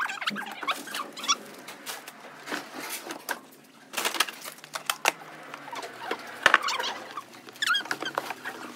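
Cardboard boxes being shoved and wedged into a car's boot: repeated knocks and scrapes of cardboard, with short squeaks from cardboard rubbing on cardboard.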